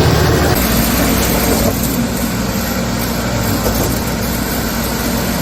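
Self-loading concrete mixer's engine running steadily. Its sound changes abruptly about half a second in and again a little later.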